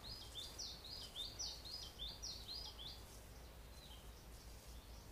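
A small songbird singing a quick series of short, high notes, each falling in pitch, for about three seconds, then a few fainter notes, over faint quiet forest background.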